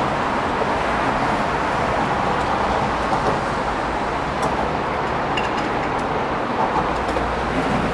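Steady road traffic noise from vehicles passing on an elevated expressway: an even, unbroken rush of tyres and engines.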